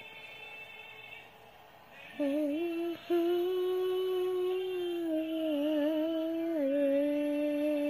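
A girl humming long, held notes with her mouth closed, starting about two seconds in, with a short break just after three seconds and a wavering stretch before settling on a lower note.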